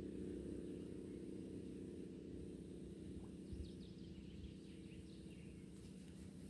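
Outdoor ambience: a steady low rumble with a few faint bird chirps in the middle, and one soft thump about three and a half seconds in.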